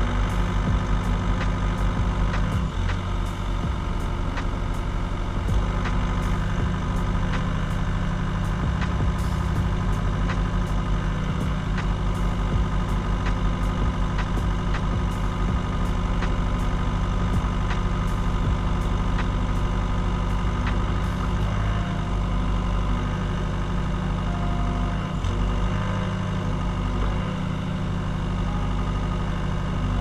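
Case CX60C mini excavator's diesel engine running steadily while its boom and bucket are worked. A light, regular ticking about twice a second runs with it and stops about two-thirds of the way through.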